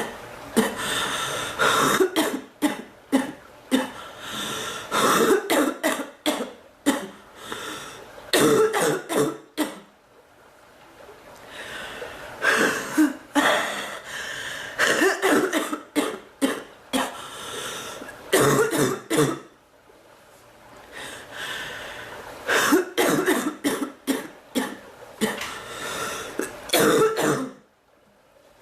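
A woman coughing in three long fits of rapid, repeated coughs, separated by short pauses of about two seconds.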